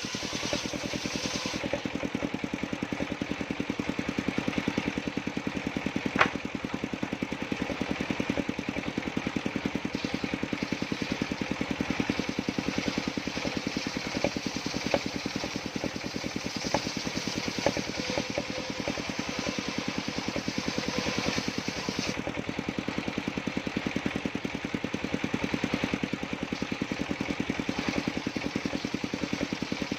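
The engine driving a sawmill circular saw runs steadily, with a fast, even firing beat and a few sharp knocks now and then.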